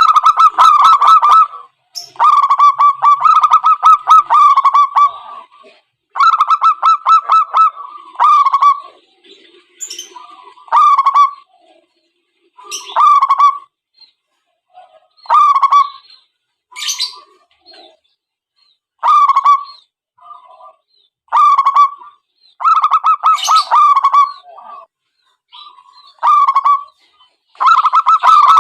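Zebra doves cooing: rapid, stuttering pitched phrases repeated in runs of about one to four seconds with short pauses between them.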